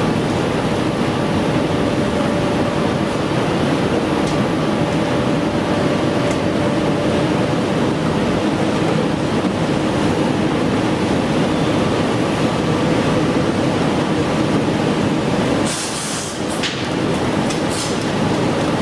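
Steady, loud heavy-machinery noise with a faint steady hum. About sixteen seconds in it dips briefly, and a few sharp metallic clicks and knocks follow.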